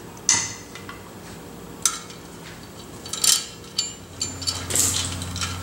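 Motorcycle wheel spokes clinking against each other and the hub as they are fed through the hub flange and laid over into place: about four light, separate metallic clinks.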